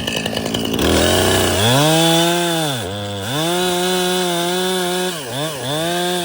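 Two-stroke chainsaw revving up from idle about a second in and running at full throttle through a cut in a tree trunk. The engine speed dips briefly near three seconds and twice near five seconds as the chain loads in the wood, then climbs back.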